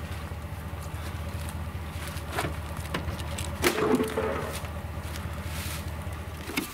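Pickup truck idling with a steady low hum while a dead doe is heaved into the truck bed: a few knocks, and a louder thump near the middle as the deer lands in the bed.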